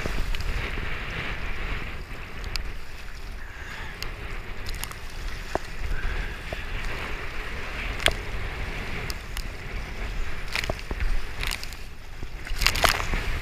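Sit-on-top kayak being paddled through choppy water: steady sloshing of water against the hull, with a low rumble of wind on the microphone. Sharp paddle splashes come every second or two, with a louder cluster near the end.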